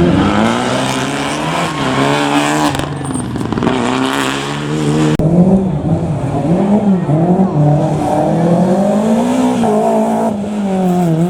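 Rally car engine at full throttle on a gravel special stage, its pitch repeatedly climbing and dropping back through gear changes. The sound changes abruptly about five seconds in.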